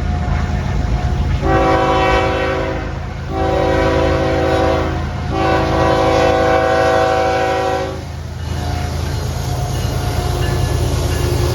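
Locomotive horn sounding three blasts, the first two shorter and the third longer, as a horn salute to people watching trackside. Under the horn runs the steady low rumble of the moving train.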